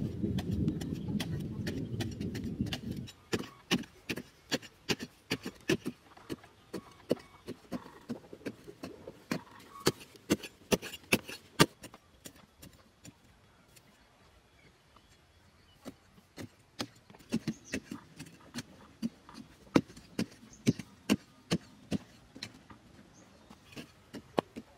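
Small spade blades on bamboo handles stabbing and chopping into dry, hard earth as holes are dug by hand: sharp, irregular strikes, often a few a second, with a lull of a few seconds midway. A low rumble fills the first three seconds.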